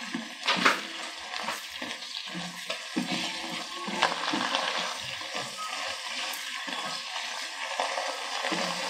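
Beef cubes bubbling and sizzling in a thin soy-sugar sauce and their own juices in a wok as the liquid cooks down. A silicone spoon stirs them, with a few sharper knocks or scrapes against the pan, the loudest about half a second in.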